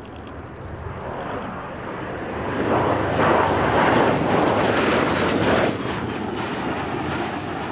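Bell Boeing V-22 Osprey tiltrotor flying past, its twin turboshaft engines and large proprotors growing steadily louder to a peak, then dropping off sharply about six seconds in. A faint whine slides down in pitch as it passes.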